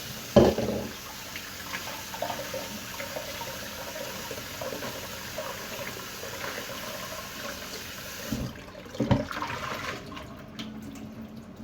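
Kitchen tap water running into a sink as sliced bitter gourd is rinsed and drained, with a sharp knock about half a second in and another about nine seconds in. The running water stops about ten seconds in.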